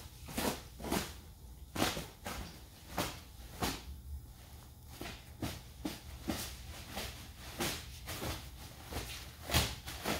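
Plastic wrap on a roll of carpet being slit along its length with a knife and handled: a string of short, irregular crackles and scrapes, about one or two a second, mixed with a few footsteps on a concrete floor.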